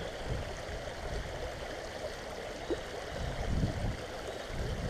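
Shallow creek riffle rushing steadily over rocks, with uneven low rumbles underneath.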